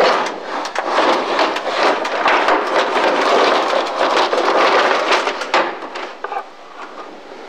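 Roller shutter rolling up over a cloakroom counter, its slats clattering continuously. The clatter stops about five and a half seconds in, followed by a few lighter knocks.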